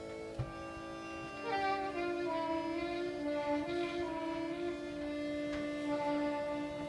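Live acoustic ensemble music: a steady drone of held tones, with a higher instrument sliding and wavering between notes over it from about a second and a half in.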